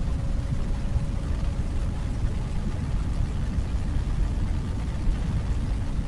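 Wind buffeting on the microphone of a moving motorcycle: a heavy, fluttering rumble that is louder than the Benelli BN600i's inline-four engine running steadily beneath it.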